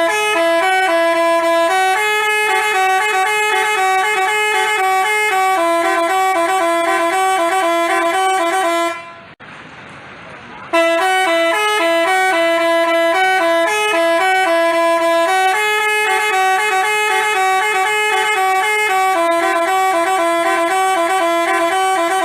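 Basuri telolet bus horn playing a melody of buzzy, stepping notes. It breaks off about nine seconds in, then plays the tune again about a second and a half later.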